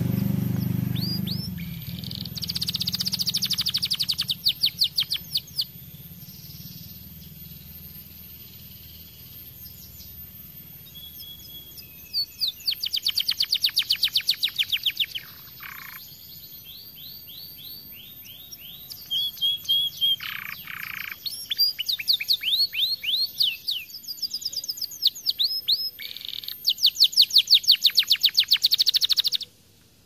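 Domestic canary singing: bouts of fast, rolling trills and chirps, with a long pause between about six and twelve seconds in, and the loudest, longest bout near the end.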